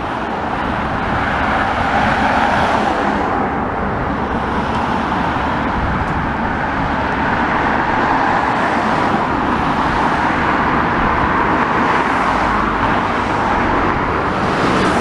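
Road traffic: cars and vans driving past, a steady rush of engine and tyre noise.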